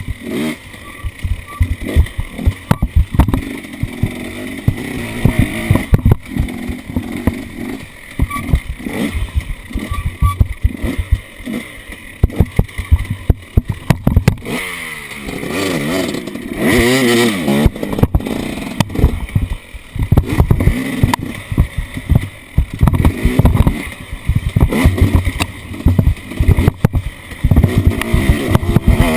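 Off-road vehicle engine running while the vehicle is driven over rough ground, with frequent knocks and jolts. About halfway through the engine revs up and then back down.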